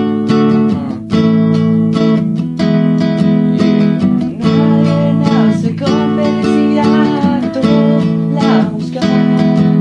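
Music led by a strummed acoustic guitar, chords struck in a steady rhythm.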